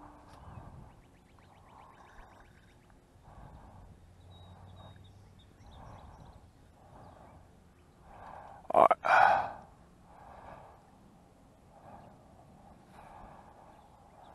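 Breathing through the nose close to the microphone, soft even breaths about every second and a quarter, from a person holding the camera in his mouth. One breath about nine seconds in is much louder and sharper.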